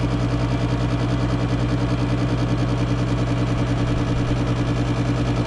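Gas furnace's draft inducer motor running with a steady hum before the burners light, the furnace partway through its start-up sequence.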